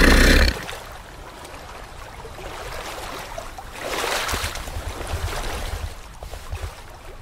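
Crocodile sound effect: a loud, low growl that cuts off about half a second in, followed by a quieter, water-like rushing noise that swells around four seconds in.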